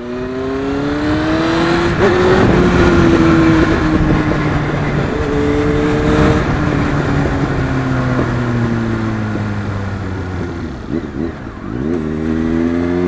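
Honda Fireblade 929's inline-four engine running through its Two Brothers aftermarket exhaust while being ridden. The revs climb over the first couple of seconds, ease down slowly, dip briefly about eleven seconds in, then pick up again near the end.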